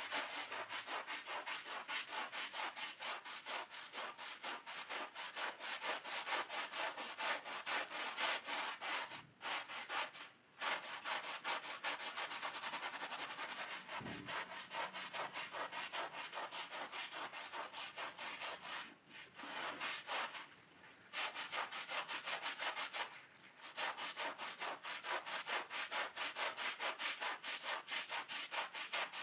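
A stiff-bristled hand scrub brush scrubbing a wet, soapy rug pile in rapid back-and-forth strokes. The strokes stop briefly a few times.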